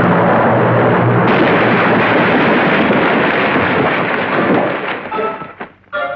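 A sailing warship's broadside of cannon fired together, heard as one long, continuous blast that dies away about five seconds in. Short music notes come in near the end.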